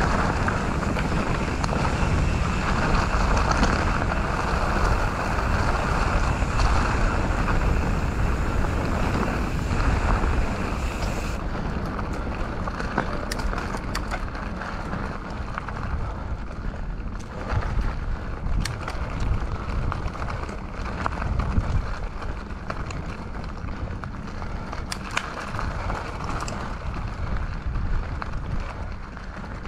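Mountain bike rolling along a dirt trail, heard as a steady rush of wind on the action-camera microphone and tyre noise. It is louder for the first dozen seconds, then quieter, with scattered sharp clicks and rattles from the bike over the ground.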